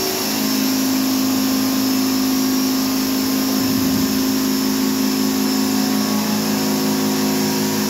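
Pressure washer running with a steady hum from its motor and pump, under the hiss of its water jet spraying a van's bodywork: the final rinse of a car wash.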